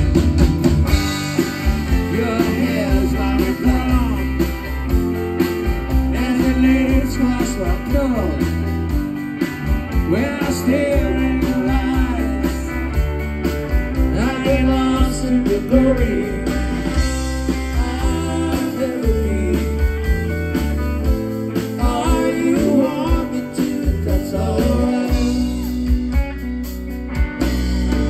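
Live rock band playing: electric guitar, bass guitar, drums and keyboard, with the guitar prominent.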